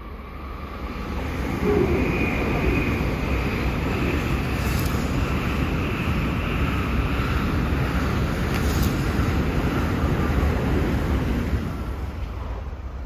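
A Tokaido Shinkansen N700-series bullet train passing below, heard as a rushing rumble. It builds over about two seconds, holds steady for around ten, then fades near the end.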